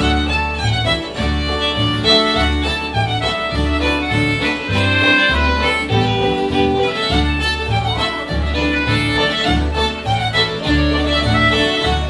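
Old-time string band playing a fiddle tune: bowed fiddle lead over acoustic guitar strumming a steady rhythm with regular bass notes, with an Anglo-style concertina playing along.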